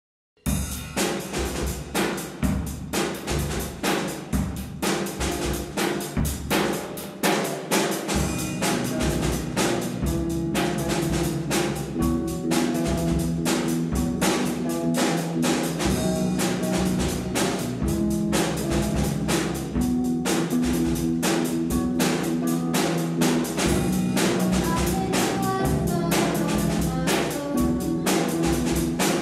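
Rock band playing: a drum kit starts alone with a steady beat, then electric bass and electric guitars come in with a riff about eight seconds in.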